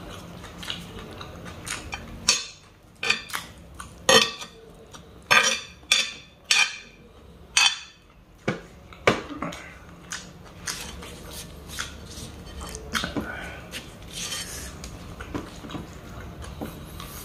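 A metal spoon scraping and clinking on a black sizzling plate as the last of the chicken sisig is gathered up: a run of sharp clinks and scrapes, loudest and densest in the first half, then lighter ticks.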